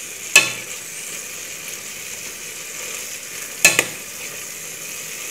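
Shredded chicken sizzling in an ají amarillo and garlic base in a pot as it is stirred with a metal spoon. There is a steady frying hiss, and the spoon clinks sharply against the pot twice, near the start and again about three and a half seconds in.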